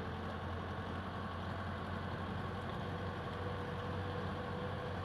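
Vehicle engine running steadily with a low hum and road noise, heard from on board the moving vehicle.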